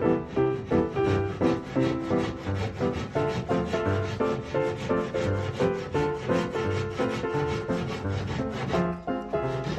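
Background keyboard music with a steady rhythm and a stepping melody, over rhythmic rubbing on wood.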